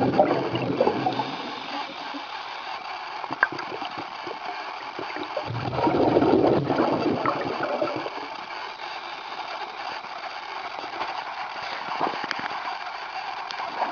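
Underwater bubbling from a scuba diver's exhaled breath: a burst of bubbles at the start and another about six seconds in, with quieter hiss and small clicks between.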